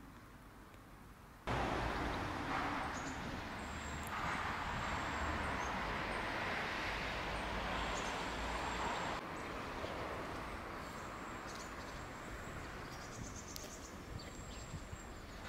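Steady outdoor background hiss with thin, high insect chirps over it, starting suddenly about a second and a half in and dropping a little about nine seconds in.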